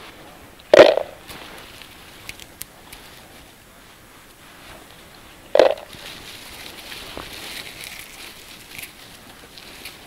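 Close rustling and crackling of blueberry bushes during hand-picking, with two loud brief rustles about a second in and again halfway through, and faint scattered clicks between them.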